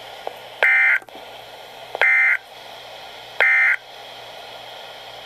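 Three short bursts of EAS SAME digital data tones from NOAA Weather Radio, each about a third of a second long and spaced about 1.4 s apart, over steady radio hiss. These are the end-of-message code that closes the alert.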